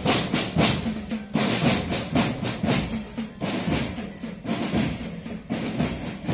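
Percussion music with a steady drum beat and sharp, bright strikes, of the kind that accompanies a dancing-horse procession.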